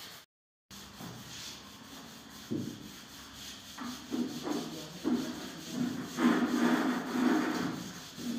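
Wooden panel and boards rubbing and scraping as they are slid and pressed into place against a wall, in irregular strokes that get busier and louder from about four seconds in. The sound drops out briefly just after the start.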